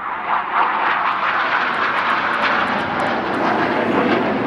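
A BAE Hawk T1 jet's Rolls-Royce Turbomeca Adour turbofan passing low and loud as a rushing jet roar. It swells in at the start and sinks lower in pitch near the end as the jet goes by.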